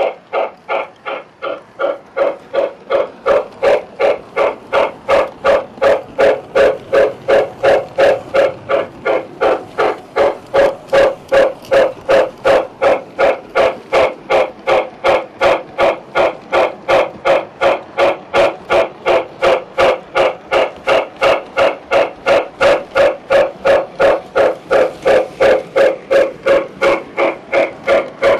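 O gauge model steam locomotive's sound unit chuffing steadily, about three even chuffs a second.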